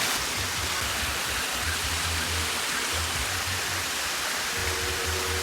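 Loud, steady rushing water, as of a waterfall, with the bass line of background music pulsing underneath and a held tone joining near the end.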